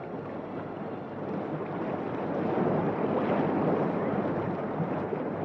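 Sound effect of a rough sea: a rushing surf noise that swells to a peak about three seconds in, then eases off.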